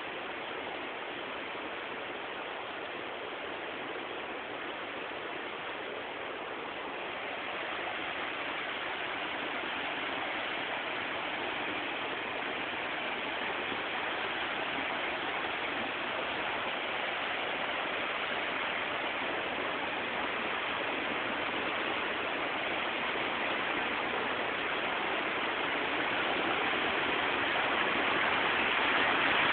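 Fast-flowing river rushing over rocks: a steady rush of white water that grows louder about a quarter of the way in and again near the end.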